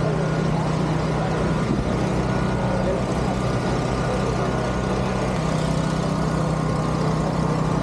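An engine idling steadily, with a slight change in its note about five seconds in, over a crowd talking.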